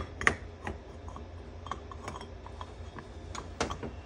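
Scattered small metallic clicks and clinks of brake caliper parts being handled and set down on a metal workbench, the sharpest about a third of a second in and a few more near the end, over a steady low hum.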